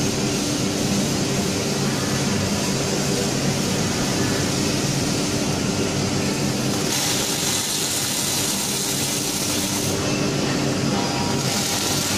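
Robotic arc welder welding a forklift mast: the arc's hiss and crackle starts about seven seconds in, breaks off briefly near the end, then resumes. A steady mechanical drone runs underneath.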